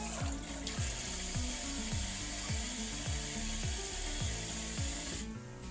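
Background music with a steady beat, a kick drum about twice a second, over water running from a kitchen tap onto a fish being rinsed in the sink. The running water stops suddenly near the end while the music carries on.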